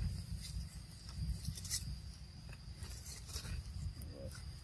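Macaque chewing a piece of cucumber, with scattered crunches, over a steady high insect trill and a low rumble.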